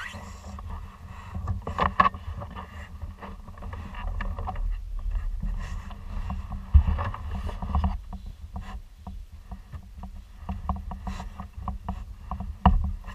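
Wind blowing across the microphone of a camera mounted on a kayak's bow, an uneven low rumble that swells and fades, with scattered sharp knocks and clicks from the kayak.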